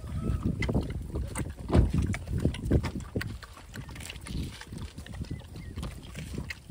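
Dogs lapping and slurping liquid from a plastic tray, in quick irregular wet laps.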